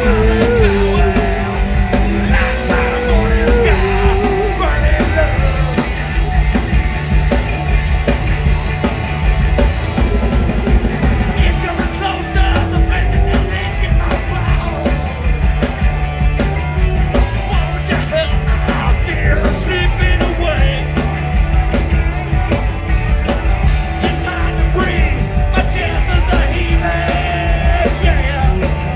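Live cowpunk rock band playing: loud drums, bass and electric guitar with a singer's voice in the first few seconds, the drums and cymbals hitting harder from about a third of the way in.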